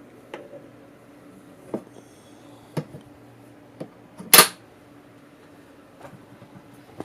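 A handful of short clicks and knocks at irregular intervals, the loudest a sharp knock about four and a half seconds in, over a faint steady hum.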